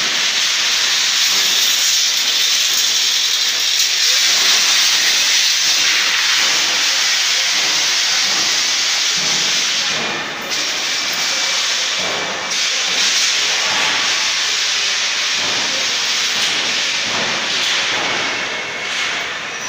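Loud, steady hiss of black paint being spray-painted onto a newspaper-masked strip of a bus body, cutting out briefly twice near the middle as the spray stops and restarts.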